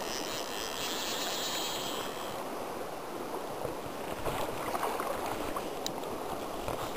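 River current rushing steadily over rocks close to the microphone. From about four seconds in, a few light clicks and rustles of hand and sleeve handling are added.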